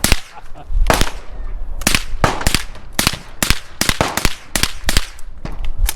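Gunfire: about fifteen sharp shots in irregular succession, some in quick pairs, each with a short echo.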